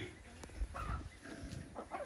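Chickens clucking: a series of short clucks that start about a second in.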